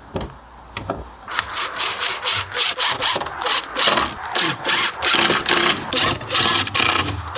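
Rhythmic back-and-forth strokes of a hand tool rubbing on wood, about two to three a second, starting about a second in.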